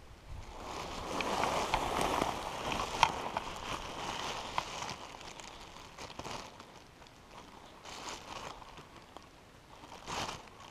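A clear plastic bag crinkling, with leafy shrubs rustling, as berries are picked by hand into the bag. It is busiest and loudest in the first few seconds, then comes back as a few shorter rustles.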